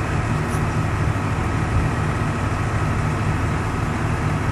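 Fire engine's diesel engine idling steadily: an even low drone with a thin steady whine above it.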